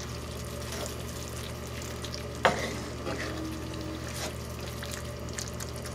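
Shredded chicken in tomato sauce simmering and sizzling in a cast-iron skillet as a wooden spoon stirs it, with one sharp knock about halfway through.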